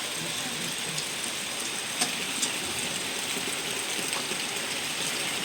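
Heavy rain falling steadily, with a couple of sharper drop ticks about two seconds in.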